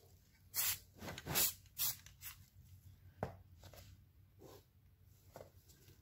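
Rust-Oleum aerosol spray-paint can giving a few short hisses about half a second apart in the first two seconds, then a single sharp knock about three seconds in and faint handling noises.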